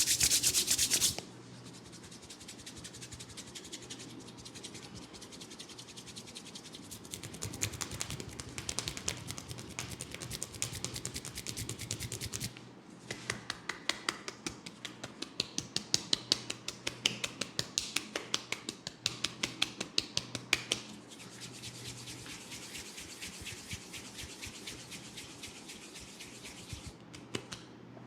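Hands rubbing and scratching through hair and over the scalp in a head massage. It starts with a loud brief rustle, then a steady rubbing hiss, with long runs of quick rhythmic strokes in the middle.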